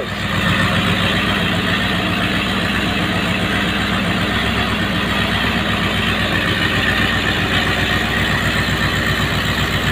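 Leyland P76 4.4-litre V8 running at a steady idle on twin Zenith-Stromberg carburettors, exhausting through a pair of Harley-Davidson motorcycle mufflers. The idle is only roughly set, as the engine has not yet been tuned.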